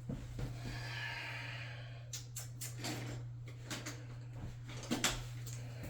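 Toilet tank bolts and parts being handled: several light clicks and knocks about halfway through, over a steady low hum.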